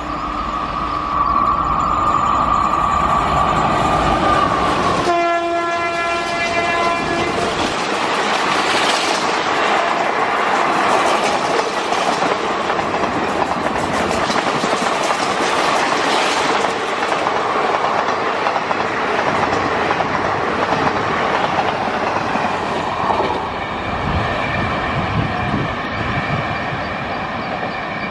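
Electric locomotive's horn sounding one long steady blast, then a shorter, fuller blast, as an express train approaches at speed. The passenger coaches then rush past with a loud roar and the fast clickety-clack of wheels over rail joints.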